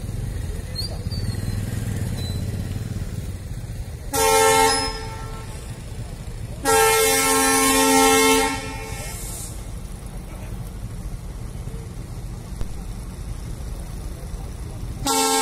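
Loud horn blasts over a steady low rumble: a short blast about four seconds in, a longer one of about two seconds a little later, and a third starting near the end.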